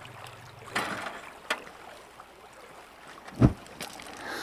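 Outdoor ambience with wind on the microphone. There is a short hiss about a second in, a click, and a single sharp low thump about three and a half seconds in.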